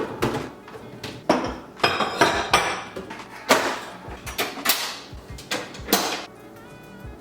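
Dishes being put away: plates, cups and cutlery clattering and knocking as they are set down, about ten sharp clinks and knocks over the first six seconds, then quieter.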